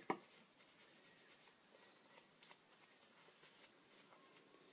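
Near silence, with one sharp click at the very start and then faint rustling of a paper tissue rubbed in the hands.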